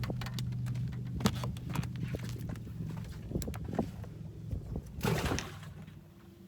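A boat's motor humming steadily, then fading out about five and a half seconds in, with scattered knocks and clicks on the boat and a short rush of noise just before the hum fades.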